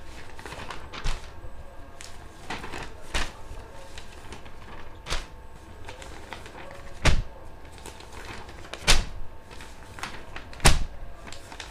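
Paper rustling and irregular knocks on desks as exam papers are handed out. Three sharper knocks stand out in the second half, a little under two seconds apart.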